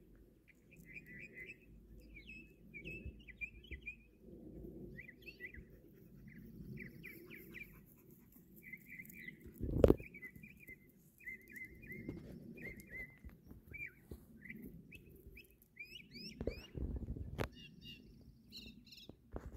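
Northern mockingbird singing a long run of short, varied chirping phrases in quick succession, higher and quicker near the end. A single loud thump comes about halfway through, over a low background rumble.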